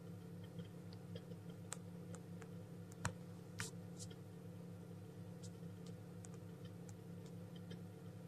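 Chick tapping at its shell from inside a pipped chicken egg: faint, irregular clicks and ticks, one sharper tap about three seconds in, over a steady low hum.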